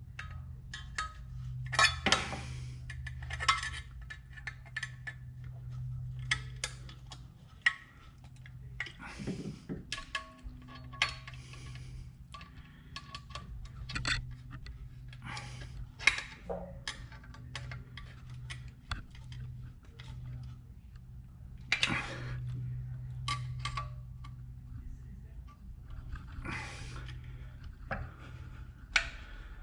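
Hand tools clinking and clicking against metal engine fittings in irregular, scattered strokes, with a few short scrapes, over a steady low hum.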